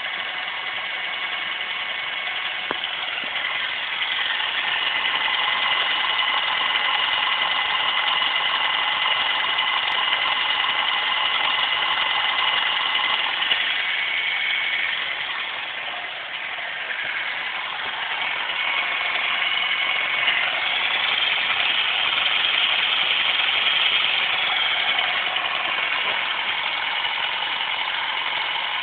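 Car engine running steadily at idle, with a steady high whine over it; the level dips briefly about halfway and then comes back up.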